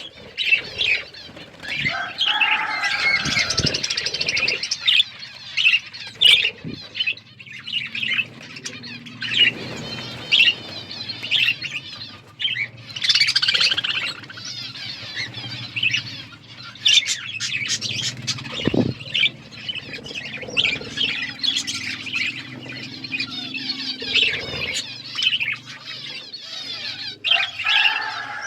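Budgerigars chattering: many quick, overlapping chirps and warbles, with no break.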